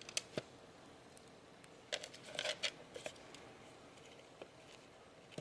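Scattered sharp clicks and light scratching rustles of a small rodent moving over seeds in a hand-held plastic bucket, with a quick cluster of clicks and rustling about two seconds in.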